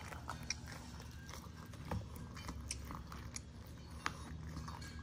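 Boston terrier chewing a dried, fur-on lamb ear: irregular small crunches and clicks of teeth working the chew.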